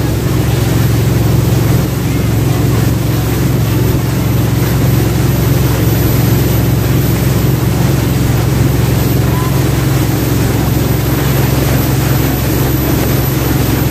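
Jet boat's engine running steadily under way, a low, even drone with a constant hiss over it.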